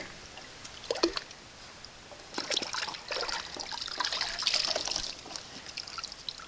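Water splashing and dripping in a plastic tub as a green monkey paws through it after a goldfish: one sharp splash about a second in, then a busier run of splashing from about two and a half to five seconds.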